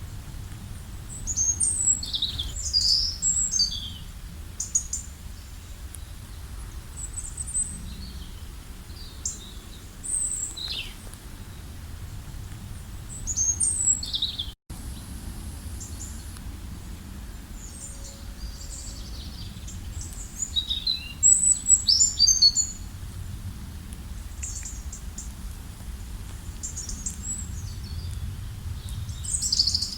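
Several wild birds chirping and trilling in short bursts over a steady low outdoor rumble, with a momentary break in the sound just after halfway.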